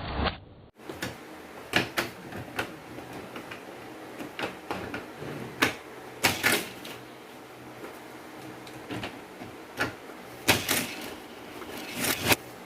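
Irregular sharp plastic clicks and clattering, as of die-cast toy cars and plastic track pieces being handled and knocking together, with several louder knocks near the middle and end.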